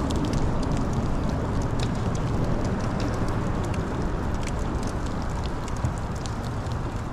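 Steady rain, with many small drops ticking close to the microphone over a constant low rushing noise.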